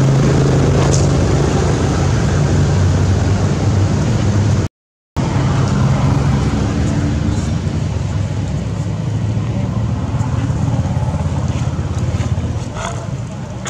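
Steady low rumble and hum of an engine running close by, mixed with wind-like noise. The sound cuts out completely for about half a second around five seconds in.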